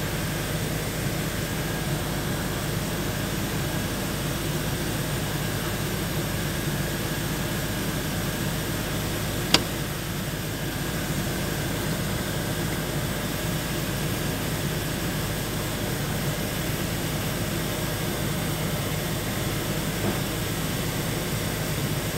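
Steady mechanical hum with a faint high whine, broken once by a sharp click about ten seconds in.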